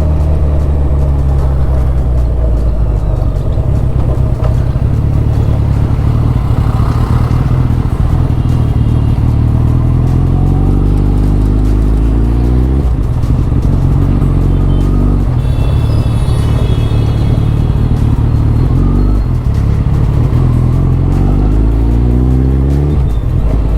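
Suzuki Hayabusa's 1340 cc inline-four engine under way, its pitch rising as the bike accelerates and dropping back at each upshift, several times over.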